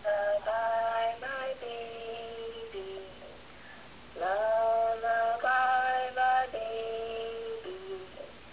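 A high voice sings or croons in long held notes, stepping from pitch to pitch in two phrases, the second sliding up into its first note.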